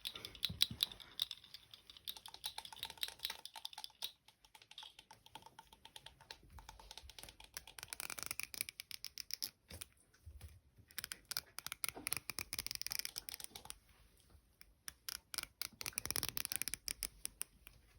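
Rapid light tapping and clicking close to the microphone, coming in bursts with brief pauses, like ASMR typing or tapping triggers.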